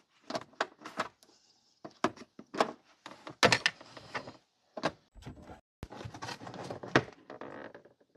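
Hard plastic cargo-area trim panel of a Jeep Cherokee being worked loose by hand from its snap-in clips: a run of sharp, irregular clicks and knocks with scraping of plastic between them.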